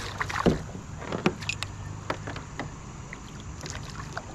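Scattered sharp clicks and knocks of fishing tackle and the kayak hull as a hooked smallmouth bass is fought and reeled in to the kayak.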